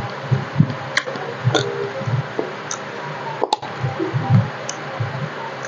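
Close-miked eating sounds: soft, wet chewing and mouth noises from eating taro curry with roti, broken by a few sharp clicks.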